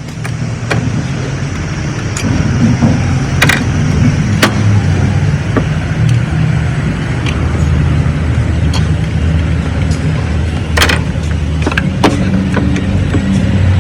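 A car engine running, a steady low hum that grows louder over the first two seconds, with scattered sharp clicks and knocks on top.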